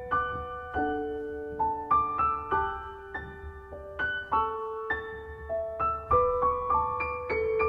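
Background piano music: a slow, gentle melody of single notes over held lower notes.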